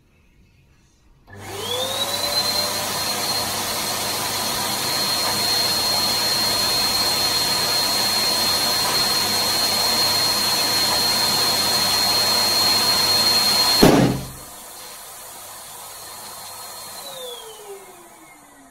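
Electric balloon pump switches on about a second in and runs steadily with a high whine, inflating a clear 12-inch crystal latex balloon until the balloon pops loudly about three-quarters of the way through. The pump runs on more quietly after the pop, then winds down near the end, its whine falling in pitch.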